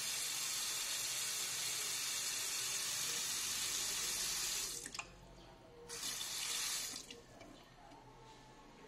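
Kitchen tap running into a metal cooking pot holding a whole raw chicken, filling it with water for boiling. The stream stops about five seconds in, runs again for about a second, then stops.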